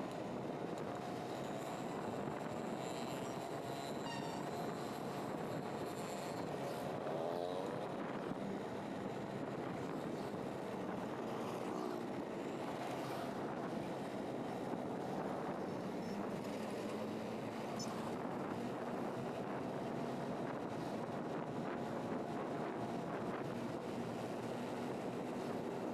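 Steady running noise of a vehicle travelling on a road: engine and tyre noise without a break, with a faint whine that wavers in pitch.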